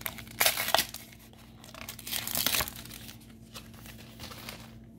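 Foil wrapper of a Pokémon Fusion Strike booster pack crinkling and tearing as it is opened, with louder bursts about half a second in and again around two seconds in.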